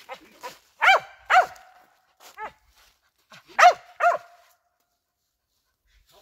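A squirrel-hunting dog (feist or cur) barking: a run of short, sharp barks, the loudest coming in two quick pairs about three seconds apart, with fainter barks between.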